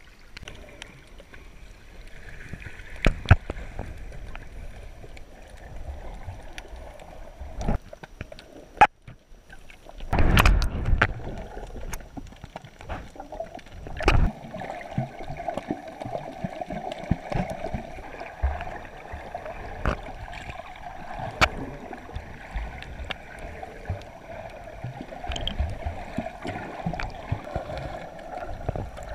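Muffled water noise picked up with the camera under the sea surface: gurgling and rushing water with scattered sharp clicks and knocks, and a loud surge of water noise about ten seconds in.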